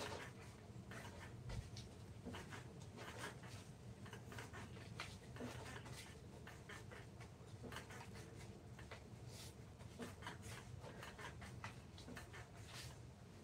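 Irregular short scraping strokes of a hand tool working wood, over a low steady hum.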